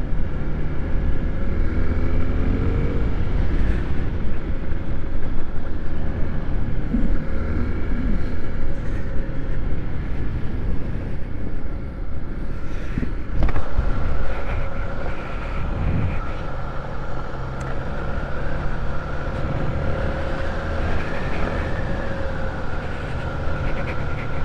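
A 250 cc single-cylinder trail motorcycle running under way on a dirt road, the engine revving up about two seconds in and then holding a steady note, with a few knocks from bumps along the way.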